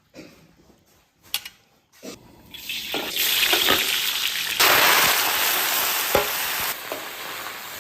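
Food going into a hot oiled wok and being stir-fried. After a couple of light knocks, a loud sizzle builds from about two and a half seconds in, is loudest in the middle, and settles to a quieter steady sizzle near the end, with a few spatula strokes against the wok.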